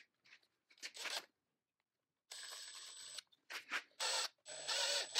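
A few short metal scrapes and clicks as a small steel threaded rod is set in a vise, then, about two seconds in, a drill runs in short spells with a high whine as its bit drills into the end of the rod, louder near the end.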